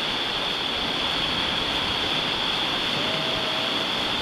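Steady rush of a whitewater river rapid.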